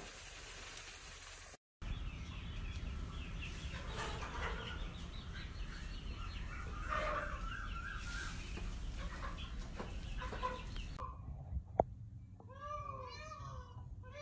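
Peafowl calling: a quick series of loud, meow-like calls near the end. Before them come several seconds of fowl clucking and chattering over a low steady hum.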